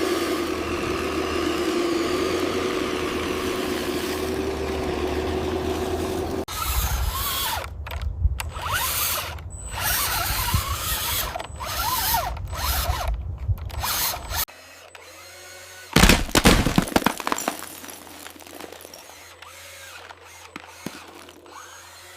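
Small electric motors and gearboxes of RC construction vehicles whining and clicking. The sound comes in abruptly cut segments: a steady hum first, then choppy rising and falling whines with clicks, then a quieter stretch with one loud burst.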